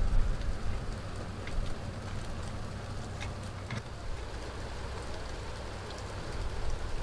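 Steady rain falling, with a low rumble underneath and a few faint drip ticks.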